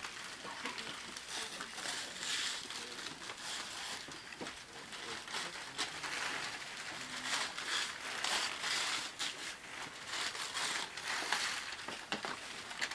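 Gift wrapping paper crinkling and tearing in a run of short, rustling bursts as presents are unwrapped.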